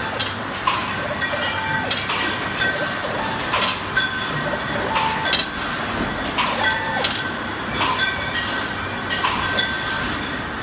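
Wine-bottle labelling line running: a steady machine noise with frequent sharp clinks of glass bottles knocking together and against the machine, some ringing briefly.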